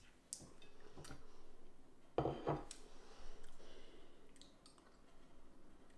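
A few faint clicks and soft knocks of a metal spoon being handled while pesto is tasted from it, the loudest pair about two seconds in.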